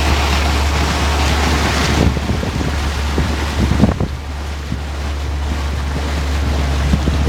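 A boat's motor running with a steady low drone, with wind rushing over the microphone and water noise. The wind hiss eases about two seconds in, and there are a few low thumps from the wind.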